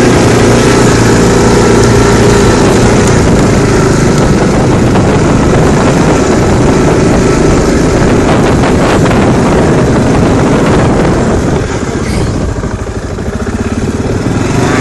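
CF Moto 500 4x4 quad's single-cylinder engine running steadily under load, easing off briefly a couple of seconds before the end and then picking up again.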